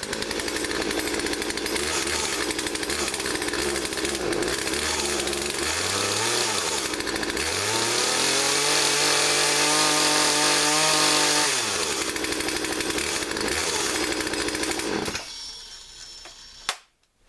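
Two-stroke gas chainsaw started warm and running: it idles, is revved briefly about six seconds in, then revved up and held from about eight to twelve seconds before dropping back to idle, and shuts off about fifteen seconds in. A single sharp click follows near the end.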